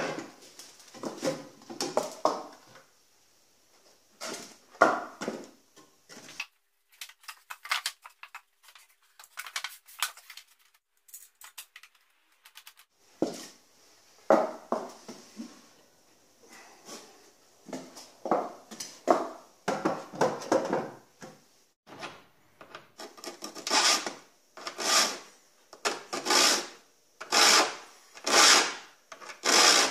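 Knocks and scrapes of wooden boards and bar clamps being handled, then a saw file rasping across handsaw teeth in even strokes, about one a second, over the last several seconds.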